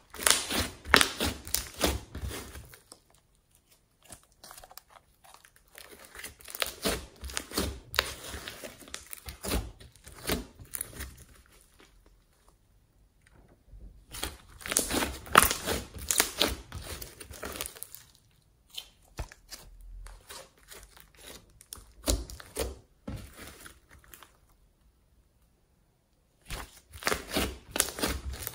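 Thick slime mixed with clay being kneaded, squeezed and stretched by hand, giving runs of dense small clicks and pops as air pockets in it burst and the dough-like mass tears. It comes in several spells of a few seconds, with short pauses between.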